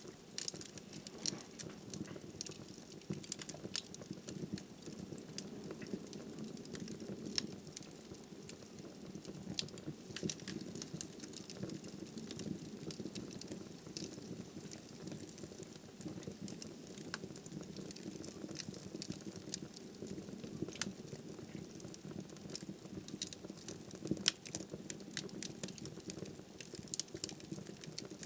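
Wood fire burning in a fireplace: a steady low rush of flames with frequent sharp, irregular crackles and pops from the burning logs.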